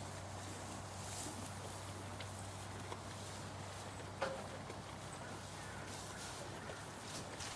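Faint footsteps and cattle hooves shuffling, with scattered light knocks and one sharper knock about four seconds in, over a steady low hum.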